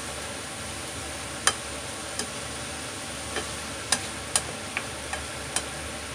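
Cucumber strips and ground beef sizzling in a frying pan as they are stirred with a spatula, with about eight sharp, irregular taps of the spatula against the pan from about a second and a half in.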